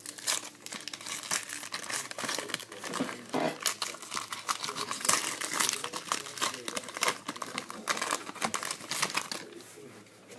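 Foil wrapper of a baseball card pack crinkling and tearing as it is opened and handled, a dense run of irregular crackles that dies away shortly before the end.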